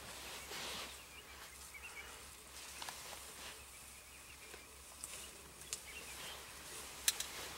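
Quiet outdoor bush ambience: a soft rustle, scattered faint clicks and a few faint bird chirps, with two sharp clicks about seven seconds in.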